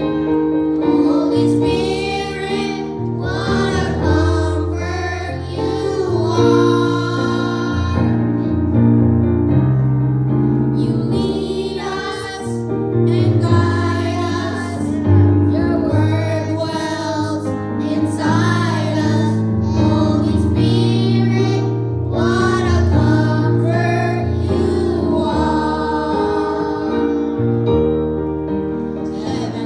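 A gospel-style song: female voices singing with vibrato over sustained keyboard chords.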